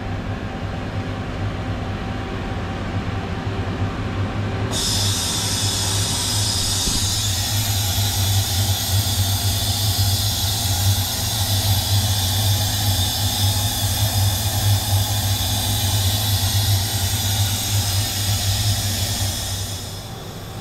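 Steady low machine hum from a powered-up Mazak Quick Turn 200 CNC lathe. About five seconds in, a loud, even high hiss starts suddenly and runs until it cuts off near the end.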